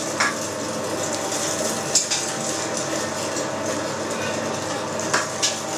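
Electric meat grinder running steadily with a constant hum, mincing chilled beef through a fine 2 mm plate. A brief knock about two seconds in.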